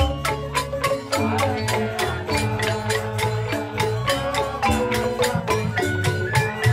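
Balinese joged bumbung gamelan: bamboo xylophones struck fast in interlocking patterns at a quick, even pulse, with low notes held underneath.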